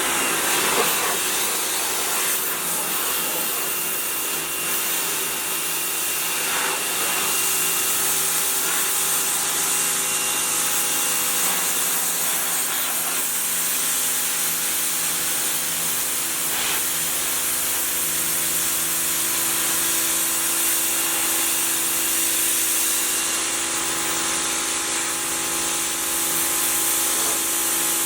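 Harbor Freight Portland electric pressure washer running steadily: its motor and pump hum under the hiss of the water jet spraying a car hood. It kicks in right at the start.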